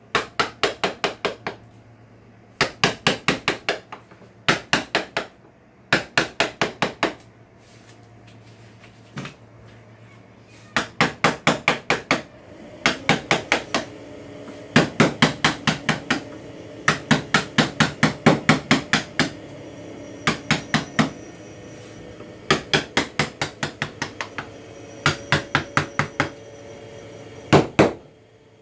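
Wooden mallet tapping a carving gouge into a wooden panel: quick runs of sharp knocks, about five a second, with short pauses between runs as the gouge is reset. A faint steady hum comes in about halfway.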